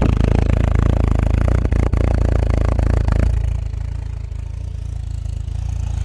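1986 Volkswagen Cabriolet's four-cylinder engine idling shortly after a cold start. It has a rattly clatter for about the first three seconds, then settles slightly quieter and steadier.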